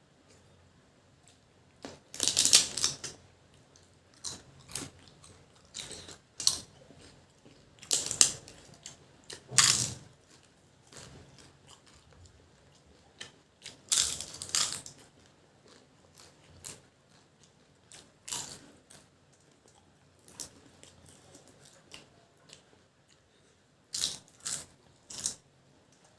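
Someone eating close to the microphone: irregular chewing and crunching, with a louder crisp crunch every few seconds and quiet gaps between.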